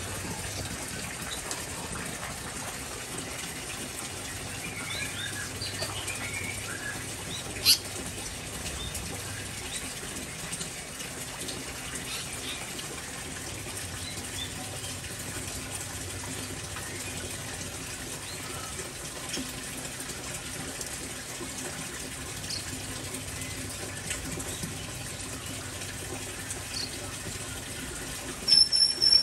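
Steady hiss of rain falling on an aviary, with small songbirds chirping now and then. There is a sharp click about eight seconds in, and a short, loud, high-pitched chirp of two or three notes near the end.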